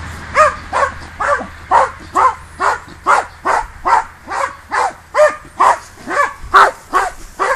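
Small dog barking in a steady, unbroken series, about two barks a second, as it chases wild boars in a pen.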